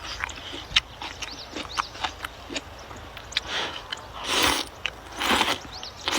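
A person eating rice noodles close to the microphone: wet chewing with smacking clicks, then three louder slurps of about half a second each in the second half.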